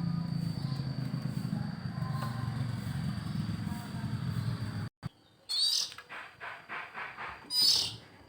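Background music for about the first five seconds, cutting off suddenly. Then a white-rumped shama gives two short, high chirps a couple of seconds apart, with a few soft ticks between them; the bird has lost its song to hoarseness.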